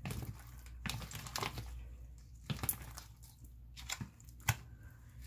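Hand kneading and pulling sticky homemade glue slime in a plastic bowl: irregular wet clicks and pops as the slime sticks and lets go. The slime is still sticky, not yet fully activated.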